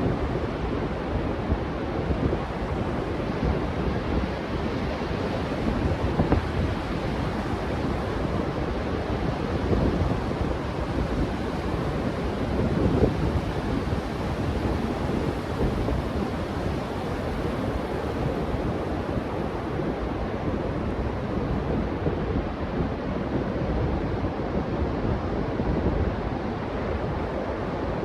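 Ocean surf breaking on a beach, heard as a steady noise, with wind buffeting the microphone.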